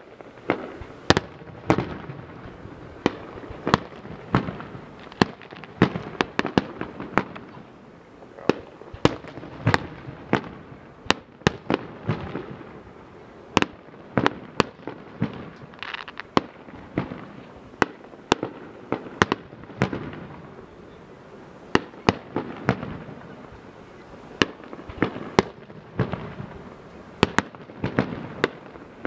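Fireworks display: aerial shells bursting in a steady stream of sharp bangs, about one or two a second, with a continuous rumble between them.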